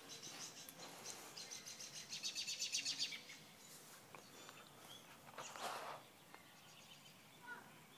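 A songbird trilling: a rapid, even run of high chirps, about ten a second, lasting about two seconds, then a single short chirp near the end. A brief hiss of noise comes a little past halfway.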